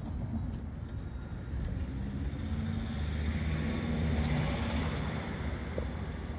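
A car driving: steady engine drone with tyre and road noise that swells to a peak about four seconds in and then eases off.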